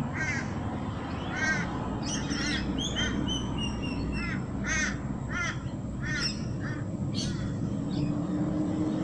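Birds calling: a run of short repeated calls, one every half second to a second, with thin falling whistles from another bird a couple of seconds in, over a steady low background noise.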